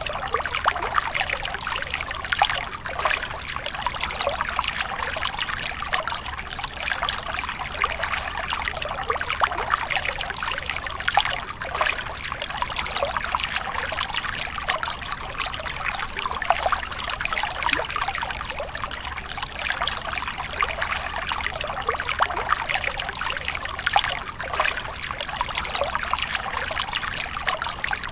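A small stream of water trickling and splashing over rocks into a shallow pool. It runs steadily, with many small splashes and dribbles.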